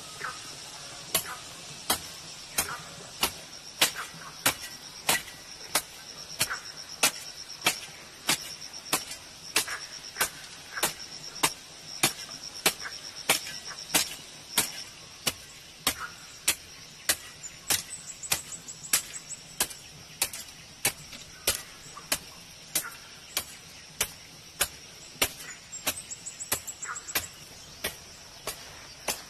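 Hand hoe chopping into dry soil again and again, about three strikes every two seconds in a steady working rhythm. Insects shrill steadily behind it.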